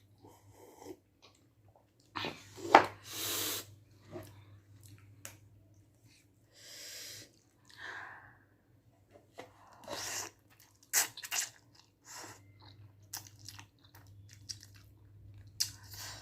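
A person eating: chewing and mouth sounds with irregular wet clicks and short noisy bursts, over a faint steady low hum.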